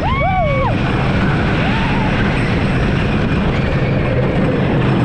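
Wooden roller coaster train running fast over its track: a loud, steady rumble with wind on the microphone. A short cry that rises, holds and falls comes from a rider just after the start.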